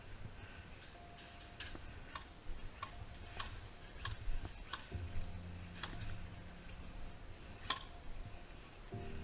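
Scattered single airsoft gun shots: about a dozen sharp clicks at irregular intervals.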